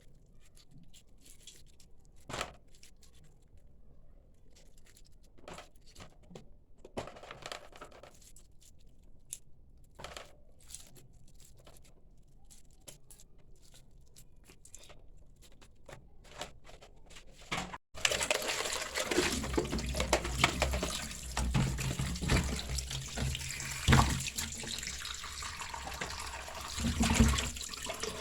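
Scattered light clicks and knocks of kitchen handling. Then, after a sudden cut about two-thirds of the way in, a kitchen tap runs into a sink, with a few knocks in the water noise.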